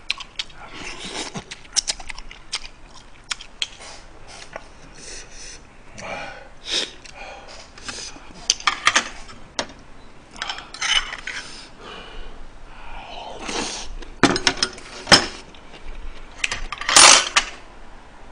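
Close-miked eating of braised chicken and aged-kimchi stew: irregular chewing and mouth smacks, with chopsticks and spoon clicking against the pot and bowls. The loudest sound comes near the end.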